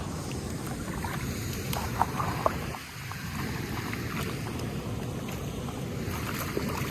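Steady rush of flowing river water, with two short sharp clicks about two seconds in.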